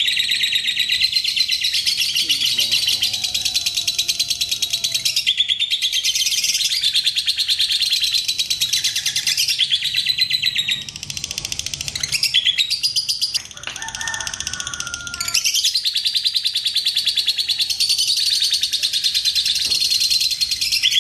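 Fischer's lovebird ngekek song: a long, unbroken, high-pitched rapid chattering trill that pauses briefly about eleven and thirteen seconds in before carrying on.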